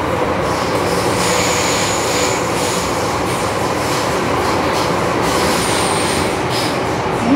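MTR M-Train electric multiple unit running at speed, heard from inside the car as a loud, steady rumble of wheels and motors. Thin, high wheel squeals come in briefly twice, about a second in and again near the six-second mark, with a few sharp clicks from the track.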